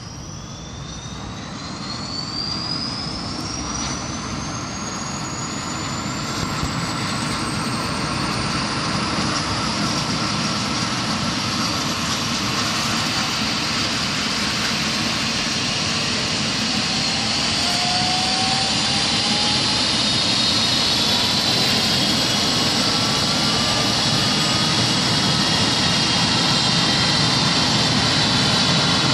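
Twin-turbine ambulance helicopter running up on the ground before take-off. A turbine whine rises slowly in pitch as the sound grows steadily louder. A second, lower whine starts climbing a little past halfway.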